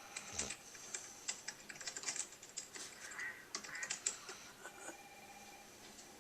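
Sleeping basset hound snoring: several bursts of quick, irregular clicks.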